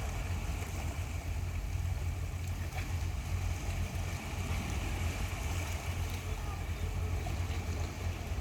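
Steady low rumble with an even hiss of wind and sea water, as heard out on a boat at sea.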